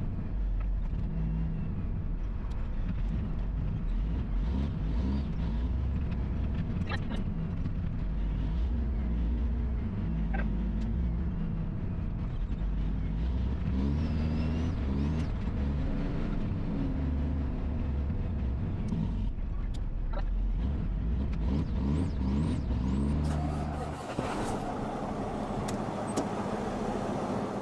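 Triaxle dump truck's diesel engine running on the road, its pitch rising and falling several times. About 24 seconds in, the engine gives way to a different, more even hiss.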